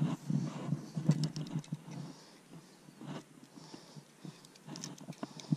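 Baitcasting reel being cranked on a retrieve, with irregular small clicks and low knocks; the knocks are heavier in the first half and the clicks come thicker near the end.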